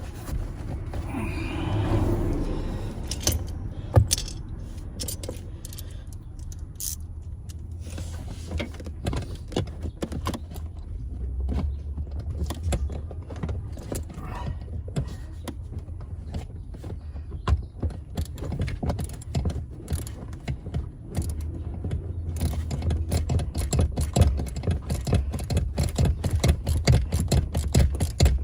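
Tools and metal parts being handled: irregular clicks, rattles and scraping, with a fast run of clicking near the end.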